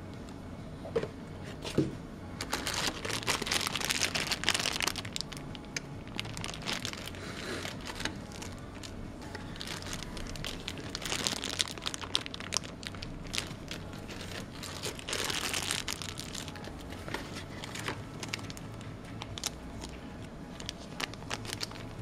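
Clear plastic bag around a cable crinkling as it is handled, in several rustling bursts, with small clicks and knocks from the packaging in between.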